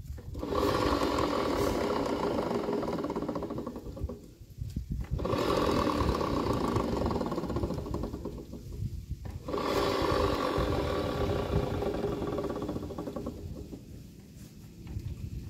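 Rear wheel of a Honda Vario 110 scooter spun by hand with the engine off, three times for about four seconds each. Each spin brings a rapid rattling growl from the CVT drive that fades as the wheel slows; the owner suspects a fault in the pulley or another CVT part.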